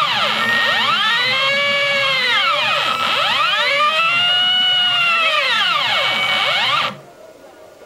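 Stepper motors of a home-built CNC machine driving its axes, singing in several whining tones that sweep up and back down in pitch with each accelerating and slowing move, until they stop abruptly near the end.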